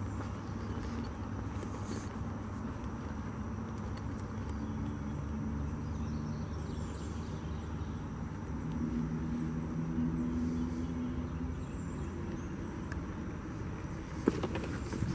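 A low, steady engine drone that swells about two-thirds of the way through, under a hiker's footsteps on a leafy dirt trail. A few sharp clicks come near the end.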